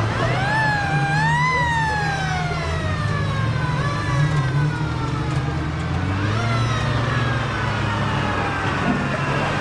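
A siren wailing twice, each time rising quickly and then falling slowly, over the steady low running of heavy military truck engines.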